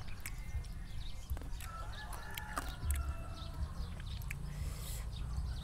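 Chickens calling in the background: a short call early on and a longer one about two seconds in. Scattered light clicks and a steady low rumble run underneath.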